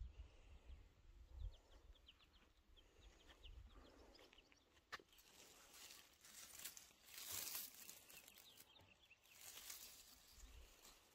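Faint rustling of radish leaves as a hand brushes and parts the plants, in two short swells in the second half. Faint, quick bird chirps sound through the first few seconds, and there is a single small click about five seconds in.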